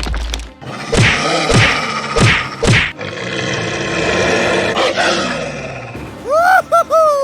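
Roaring, animal-like sound effects with several heavy thuds, over background music. Near the end comes a short, high-pitched cartoonish voice.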